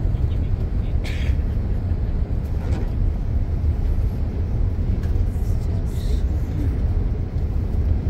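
Steady low rumble of a moving road vehicle heard from inside the cabin: engine and tyre noise while driving at a constant speed.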